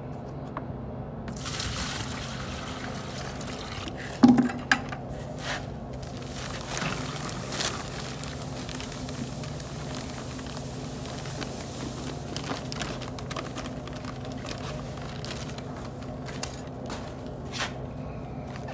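Water poured from one plastic bucket into another, then dry mortar mix tipped from a paper bag into the water, with a single sharp knock about four seconds in. A steady low hum runs underneath.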